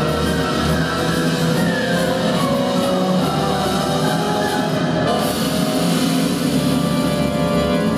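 Loud show music in a rock style, with guitar and drums, playing without a break; the sound of the music changes about five seconds in.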